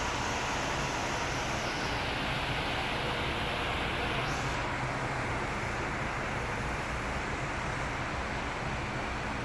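Steady road and engine noise of a moving car, heard from inside, with the high hiss growing duller about two seconds in and again about halfway through.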